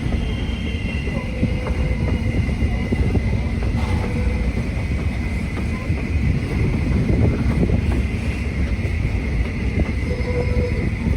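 Passenger train rolling along the track, heard from on board: a steady, loud rumble of wheels on rail with rattling and clacking. Brief squeals of the wheels come and go.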